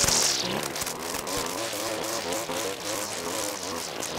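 Stihl gas string trimmer running at high speed, its engine pitch wavering up and down as the line cuts through tall grass.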